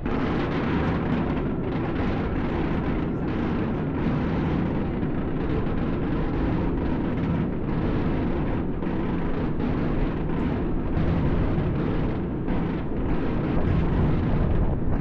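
Fireworks display: a continuous low rumble of many overlapping bursts with dense crackling, growing slightly louder near the end.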